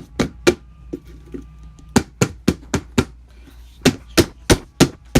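Fingers tapping and knocking on a hard plastic slime container: sharp knocks in three quick runs of three to five taps each.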